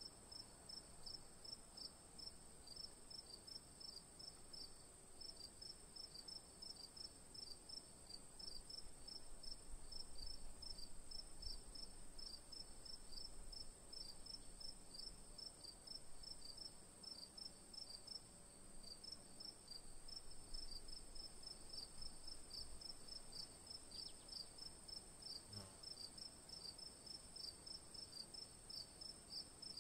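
Crickets chirping faintly in a quick, regular rhythm over a steady high-pitched trill.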